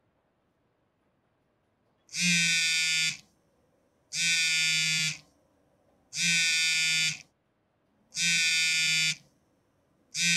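Mobile phone ringing for an incoming call with a buzzing tone, about one second on and one second off, four times, with a fifth ring starting at the very end.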